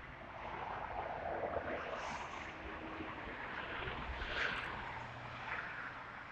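A distant engine running under steady outdoor noise.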